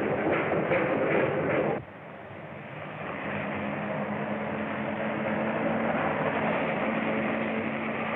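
A passing train with a rhythmic clatter of wheels on the rails, which cuts off abruptly about two seconds in. Then a car running fast with a steady engine drone and road noise.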